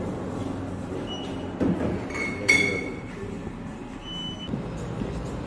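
Restaurant background noise: a steady low rumble with a few short, high ringing tones, about four of them.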